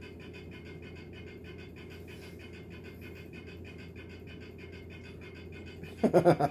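A steady low hum of room noise, then about a second before the end a person's voice breaks into a quick run of short, evenly spaced bursts, louder than anything else.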